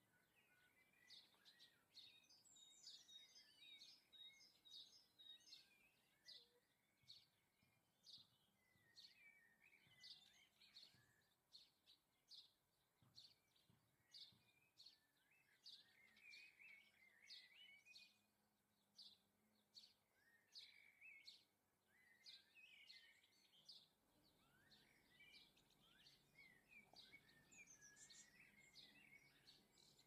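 Faint garden birdsong: a steady run of short, high chirps about two a second, with bursts of twittering in between.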